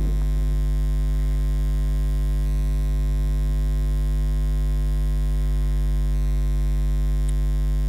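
Steady electrical mains hum in the recording: a deep, loud drone with a stack of buzzy overtones above it, unchanging throughout.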